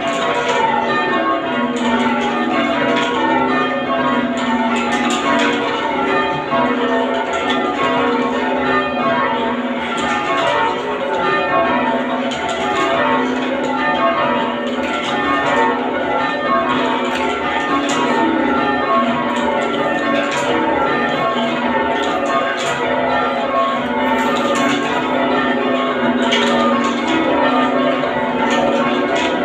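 Church bells being rung full-circle in change ringing: a steady, unbroken stream of strikes from a ring of eight tuned in F sharp with a 13 cwt tenor, each bell's hum overlapping the next.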